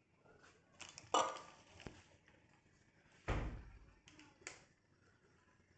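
A few scattered light clicks and knocks, with a single duller, deeper thump a little over three seconds in.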